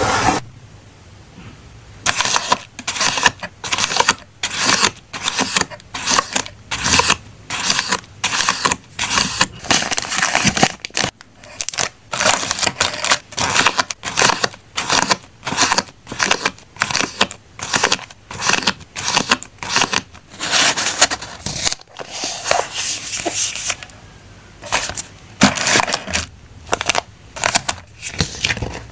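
Stationery or paper being handled in quick, repeated short scraping and rustling strokes, about two a second, with a brief pause near the end.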